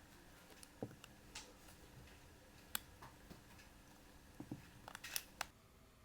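Faint, scattered light clicks and taps of small objects being handled on a surface, with a few dull knocks and a quick run of clicks near the end.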